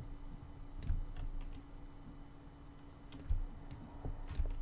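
Computer mouse clicks, about six scattered sharp clicks, with a few soft thumps on the desk and a faint steady hum underneath.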